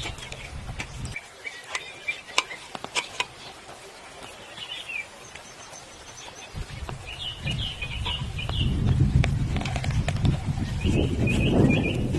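Small birds chirping in short repeated phrases, with a few sharp clicks in the first few seconds. A low rumbling noise comes in about halfway and grows louder.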